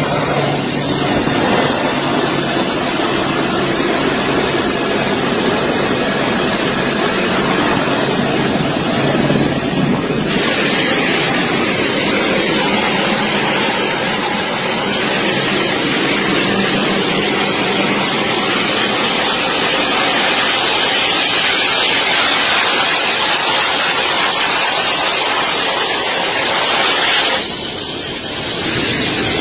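Jet aircraft's turbofan engine running close by, heard as a loud steady rushing noise, with wind buffeting the microphone as the plane moves along the runway. The hiss grows stronger about ten seconds in and drops away briefly near the end.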